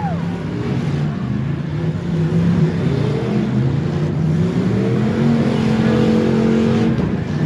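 Stock V8 demolition derby car engines running and revving. About four seconds in, one engine's pitch rises and is held high for a couple of seconds before dropping.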